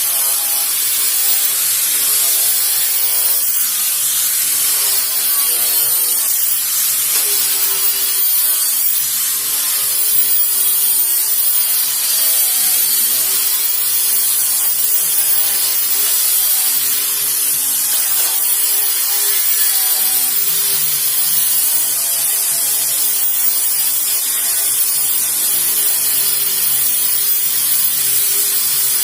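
Electric power sander running against wood: a continuous loud sanding hiss over the machine's motor hum, whose pitch drifts up and down as the load changes.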